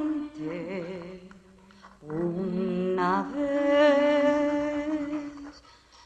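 Slow unaccompanied singing in long held notes with vibrato, a lower voice or hum sounding under the main line. It is soft and wavering at first, then from about two seconds in it holds louder sustained notes, and it trails off near the end.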